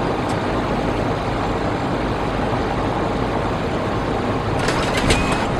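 Steady rushing noise of a jet airliner heard inside its cockpit as it rolls along the runway after landing, with a few short clicks near the end.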